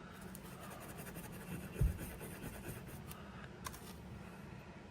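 Fine 0000 steel wool scratching lightly over the blued steel body of a vintage Craftsman ratchet, evening out the bluing. There is a low thump about two seconds in and a short click later on.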